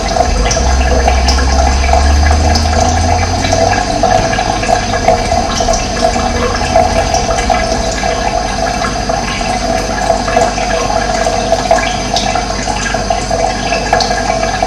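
Running water flowing steadily, with a few short, high bird chirps over it. A low rumble sits under the water for the first few seconds.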